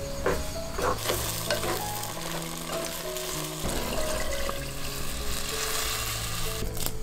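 Pork pieces sizzling in a clay pot over a wood fire, with a few sharp clicks of cooking chopsticks stirring in the first second. Water is then poured onto the meat, and the hiss cuts off near the end. Soft background music with held notes plays throughout.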